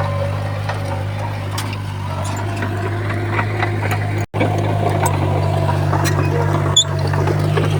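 Komatsu D31P bulldozer's diesel engine running steadily, with scattered light clanks over it. The sound drops out for an instant about four seconds in, then resumes.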